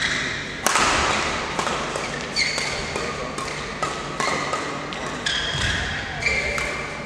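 Badminton rally in a men's doubles match: rackets striking the shuttlecock in a fast run of sharp hits, roughly two a second. Short high squeaks from players' shoes on the court mat come between the hits.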